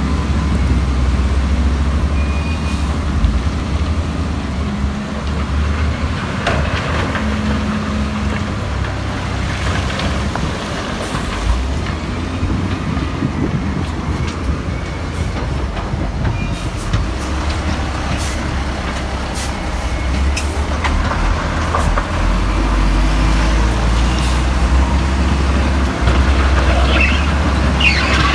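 Heavy diesel earthmoving machinery running steadily with a deep engine drone, with scattered metallic clanks and a brief high squeal near the end.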